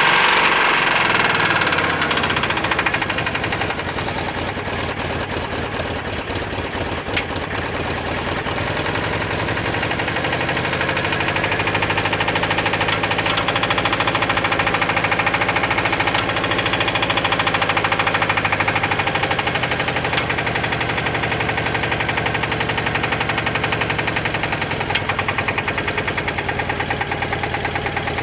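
Citroën 2CV's air-cooled flat-twin engine running, its revs dropping about two seconds in, then running steadily with small rises and falls in speed.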